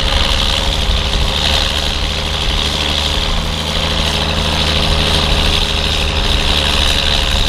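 Ford TW25 tractor's turbocharged six-cylinder diesel running steadily under load while pulling a flatlift through stubble, with a steady high whine over the low engine note.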